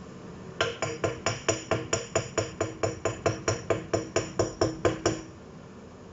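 A wooden spoon knocking against a stainless steel saucepan in brisk stirring, about twenty evenly spaced knocks at roughly four a second, each with a short metallic ring, stopping after about five seconds.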